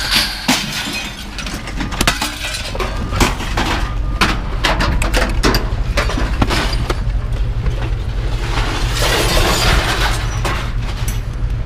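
Scrap light iron being thrown and dumped onto a pile: a string of metal clanks and clattering crashes, over a steady low hum.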